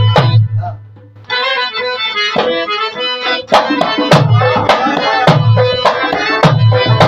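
Harmonium and hand drums playing a Pashai folk tune. About a second in the music drops out briefly. The harmonium comes back alone, and the drums rejoin with a steady beat about three and a half seconds in.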